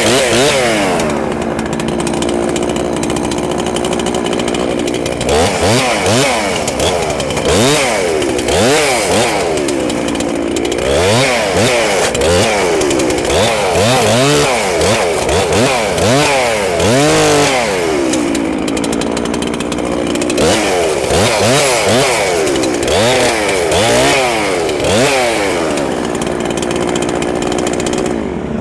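Woodland Mills TF810 PRO PTO-driven wood chipper running steadily and chipping small branches in spells, its pitch repeatedly rising and falling as pieces go through.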